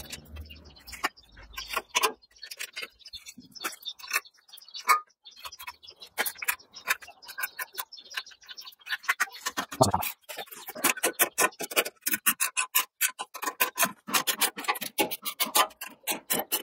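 Plastic cable drag chain being handled and flexed, its links clicking against each other in many short, sharp clicks. The clicks are scattered at first and come thick and fast from about ten seconds in.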